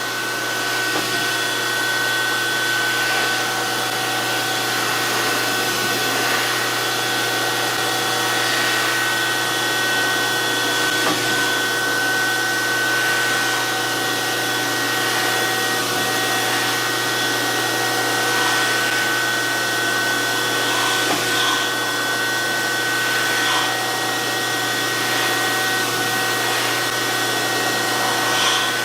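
DoAll 14-inch surface grinder running with a steady high whine, with faint scrapes every few seconds as the wheel passes over the work.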